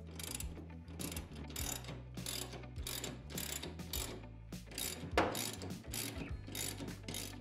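Hand ratchet wrench clicking in quick back-and-forth strokes as the seat-harness mounting bolts on the roll bar are driven in, a rapid run of pawl clicks repeated over and over.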